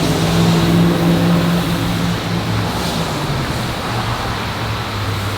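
A vehicle engine running with a steady hum that drops to a lower pitch about three and a half seconds in, over a steady hiss of high-pressure water spray.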